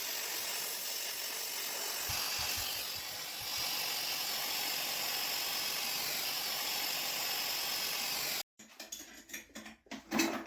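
Brazing torch flame hissing steadily while copper refrigerant joints are brazed, the hiss getting a little louder twice. It cuts off abruptly about eight seconds in, leaving only a few faint clicks.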